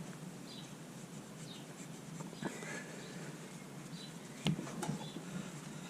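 Faint clicks and small knocks of small metal parts being handled, with a sharper knock about four and a half seconds in, over faint high chirps.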